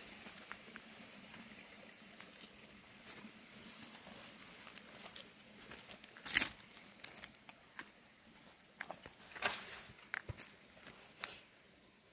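Scattered short rustles and scrapes from grain being handled on a plastic sheet and a shovel working dry earth, the loudest about six seconds in.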